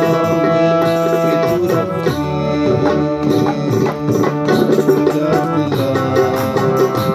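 Harmonium playing a melody, its reeds sounding sustained chords and moving notes, with a drum beat running alongside.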